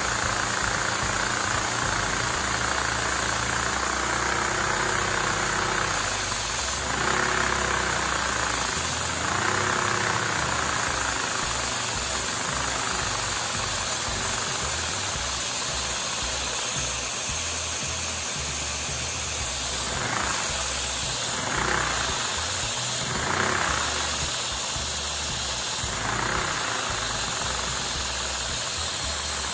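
LEGO inline-four vacuum engine running on vacuum-cleaner suction: a steady rushing hiss of the suction motor and air with the engine's mechanical running underneath. Its speed swells and falls a few times, between about 6 and 10 seconds in and again between about 20 and 27 seconds in.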